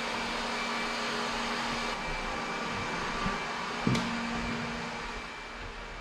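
ILIFE robot vacuum running with a steady whir and a faint motor hum. A single sharp click comes about four seconds in, and the sound grows a little quieter near the end.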